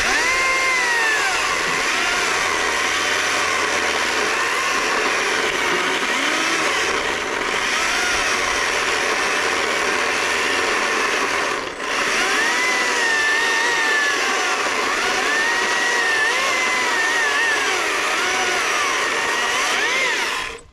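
Stihl MSA 120C battery chainsaw running at full trigger and cutting wood. Its electric motor whine sags and recovers as the chain bites into the cut. About halfway through, the saw eases off for a moment, then picks back up, and it cuts off near the end.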